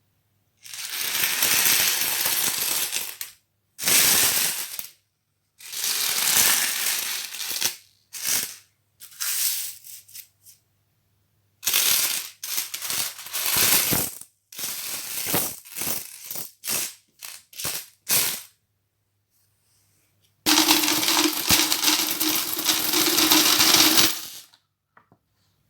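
One-dollar coins poured into a saving bottle, clattering in a run of separate pours of one to four seconds with short gaps and quicker trickles between. The last long pour, near the end, has a steady tone running under the clatter.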